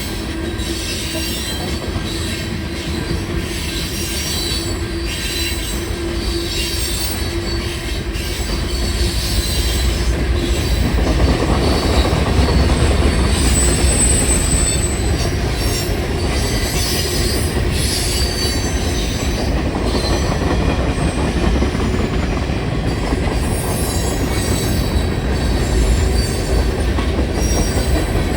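A train rolling through a grade crossing, its wheels clattering over the rails and squealing. The noise grows louder about ten seconds in and then holds steady.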